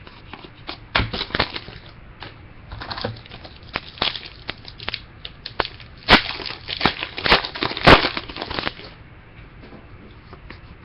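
Trading-card pack wrappers crinkling and cards being handled: an irregular run of crackles and clicks, densest about six to nine seconds in.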